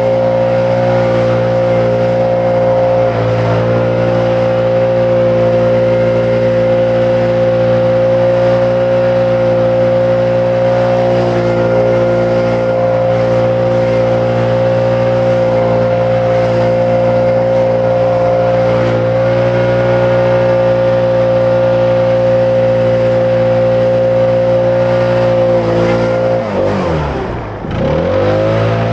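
Small petrol engine running steadily at high speed, typical of lawn equipment at work. Near the end the revs drop sharply and climb straight back up, as the throttle is let off and opened again.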